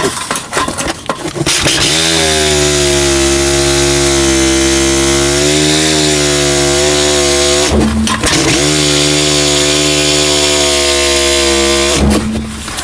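Cordless reciprocating saw cutting through painted wood panel siding, its motor running steadily under load. The cutting is stop-start at the beginning and end, with a short break about eight seconds in.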